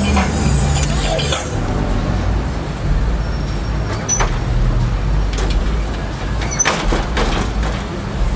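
Car engines idling and creeping along in slow, bumper-to-bumper cruise traffic, a steady low rumble. A few sharp clacks come through, once near the middle and several together about two-thirds of the way in.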